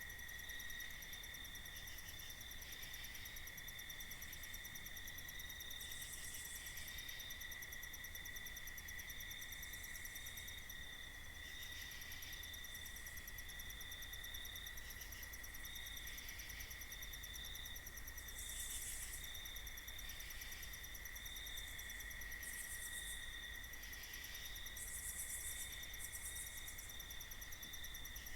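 Night insect chorus: a steady, faint cricket trill, with higher insect calls coming in short bursts every few seconds, over a low rumble.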